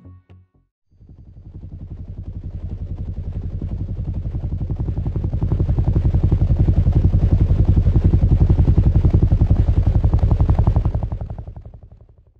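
Helicopter rotor chopping in a rapid, even beat that swells up over several seconds and then fades away near the end.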